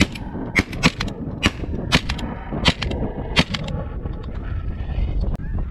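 A rapid volley of shotgun shots, about seven sharp reports in the first three and a half seconds, too many for a single gun, so more than one hunter is firing, before the shooting stops.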